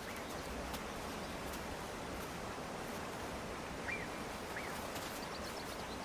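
Steady outdoor alpine ambience, an even hiss, with two faint short bird chirps a little past halfway.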